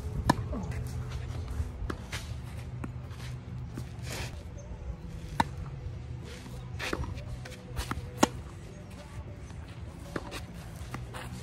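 Tennis rally: sharp pops of racket strings striking the ball every few seconds, with ball bounces and shoes scuffing on a clay court in between. The loudest hits come about a third of a second in and about eight seconds in.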